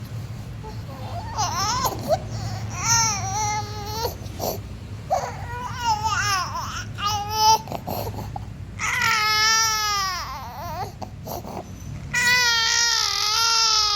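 A small child crying: several short cries from about a second in, then two long drawn-out wails near the end, over a steady low hum.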